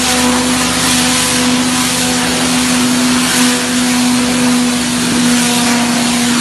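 Pressure washer running: a steady, unchanging motor hum under the hiss of the high-pressure water jet striking the paving.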